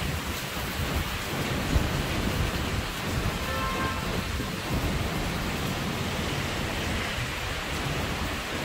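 Heavy rain pouring down, with a steady low rumble underneath.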